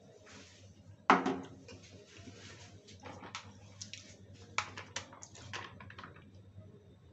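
Cookware being handled on a gas stove: one sharp, louder knock about a second in, then a run of light clicks and taps.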